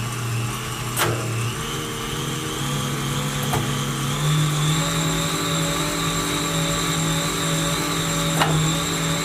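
Cycleops Fluid 2 fluid turbo trainer spinning with a steady hum and a high whine: the annoying noise it recently started making. The hum steps up in pitch a few times as the speed rises, and a few sharp clicks come through.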